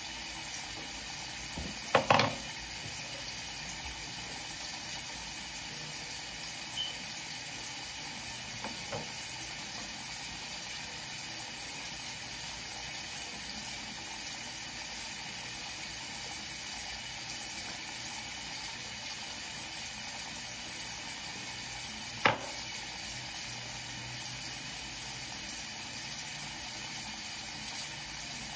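A steady hiss, broken by a sharp knock about two seconds in and another near the end, with a couple of faint taps between.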